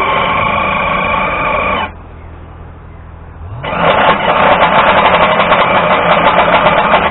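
Power drill running in two bursts. A steady whine stops abruptly about two seconds in. After a short pause the motor spins up again and runs with a rapid chatter, then cuts off suddenly.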